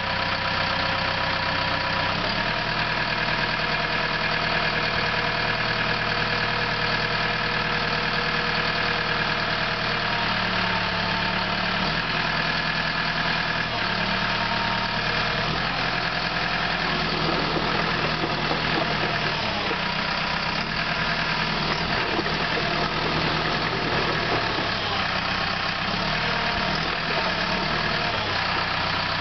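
CAT D4K dozer's diesel engine running steadily, its note shifting several times: once about two seconds in and repeatedly in the middle, as the machine's hydraulics are worked.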